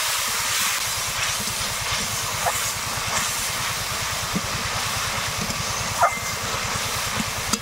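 Spice paste and water sizzling and bubbling hard in a hot metal wok as the masala is fried down, with a steady hiss and fine crackle. A metal spatula stirs through it.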